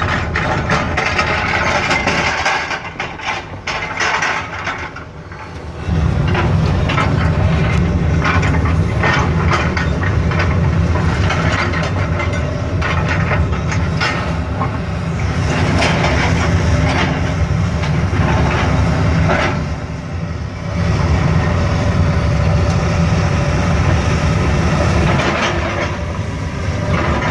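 John Deere 200 excavator's diesel engine working hard, with clanking and scraping as its bucket pries concrete footers out of the ground. The engine eases off from about two and a half seconds in until about six seconds, and again briefly near twenty seconds.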